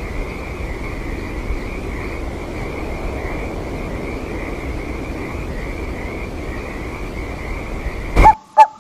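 Night ambience of a frog chorus: a steady, continuous trilling with a low rumble beneath. Just before the end it cuts off abruptly and two loud, sharp hits with a ringing tone follow.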